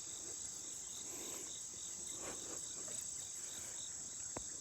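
Outdoor insect chorus: a steady, high-pitched drone with a regular chirp pulsing a few times a second beneath it, and a single small click near the end.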